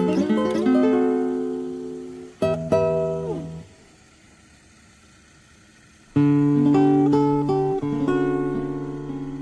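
Background music of strummed guitar chords, with a break of about two seconds in the middle.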